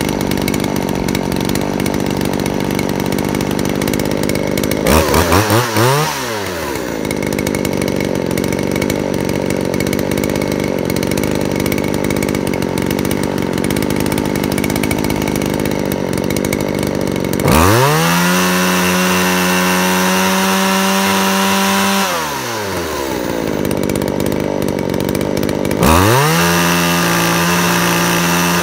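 Modified Poulan 2150 two-stroke chainsaw idling, with a quick blip of the throttle about five seconds in, then held at wide-open throttle for about four seconds past the middle and again from near the end, the pitch sweeping up and back down each time. This is a no-load top-speed check: idle sits near 2,900 rpm and full throttle climbs past 10,000 rpm, which is what the modified saw now runs at.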